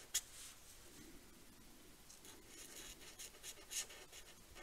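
Faint scratching of the fine tip of a silver marker pen across card in short writing strokes: a cluster at the start, then another from about two seconds in to about four seconds.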